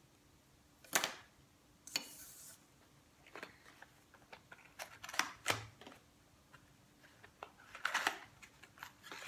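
Scattered light clicks and knocks of small tools and pieces being set down on a table, with a short crinkling rustle of a plastic zip-top bag about eight seconds in.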